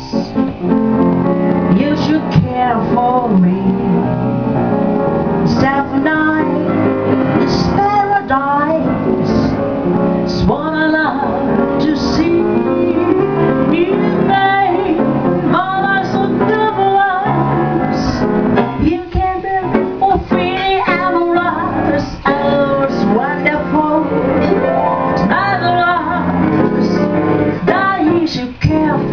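A woman singing a song into a microphone, with live instrumental accompaniment.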